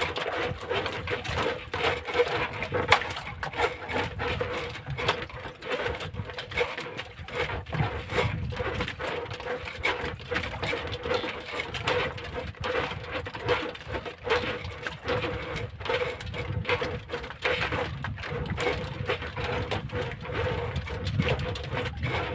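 Sea water lapping and slapping against a small wooden outrigger boat, with wind on the microphone and many small irregular knocks. A faint steady hum runs underneath.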